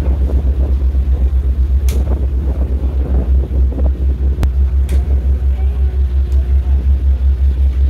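Ferry's engines and propellers running with a deep, steady throb that pulses about six times a second.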